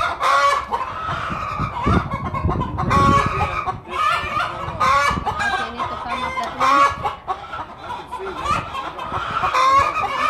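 Chickens clucking and calling over and over, many short calls one after another.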